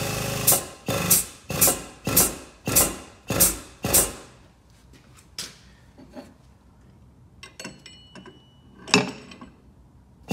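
A hammer striking steel: seven hard, ringing blows in a steady rhythm about twice a second, then lighter clicks and taps, and one more hard blow near the end.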